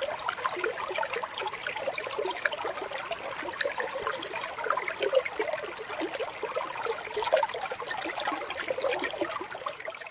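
Water trickling steadily, a dense run of small irregular splashes and gurgles.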